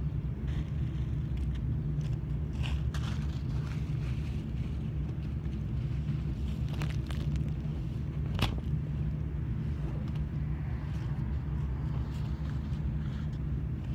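A steady low hum, with scattered faint clicks and one sharper click a little past the middle.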